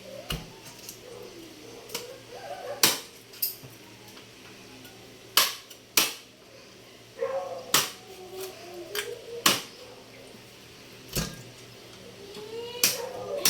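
A blade chopping through chicken on a chopping board: about eight sharp, single strikes at uneven intervals, a second or two apart.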